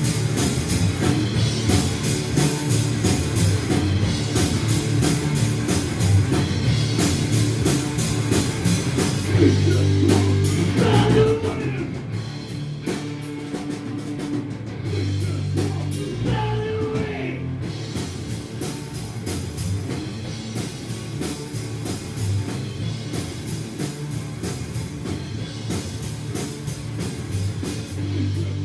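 Live rock music with drums, guitar and a singing voice, louder in the first third and dropping to a quieter passage after about eleven seconds.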